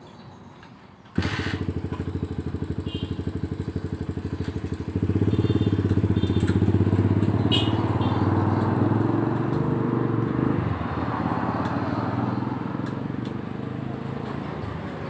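A small engine starts abruptly about a second in and runs with a rapid, even firing beat. It gets louder around five seconds in and drops back after about ten seconds.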